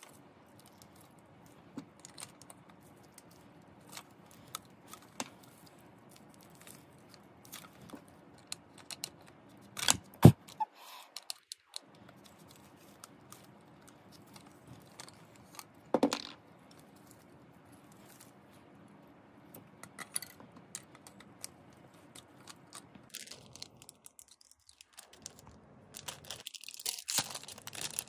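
Hands handling a plastic lightstick: scattered small plastic clicks and taps, with two louder sharp knocks about ten and sixteen seconds in. Near the end, crinkling plastic wrapping.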